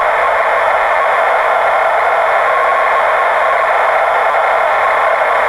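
TRS-80 Color Computer cassette data, a program saved with the stock Color BASIC CSAVE routine, playing back through the CCR-82 cassette recorder's speaker: a steady, loud, hiss-like stream of data tones. This is the original, unmodified save, markedly louder than the one made with the hacked ROM.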